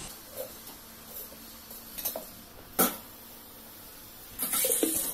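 Pan with oil being handled on the stove: a couple of sharp clicks of metal, then a short burst of hiss near the end.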